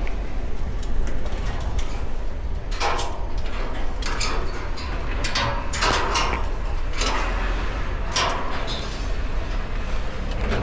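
Steady low wind rumble on the microphone, with a run of about nine short scraping noises from climbing the steel crane structure, irregularly spaced from about three seconds in.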